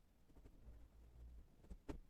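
Near silence: room tone, with a couple of faint short knocks near the end.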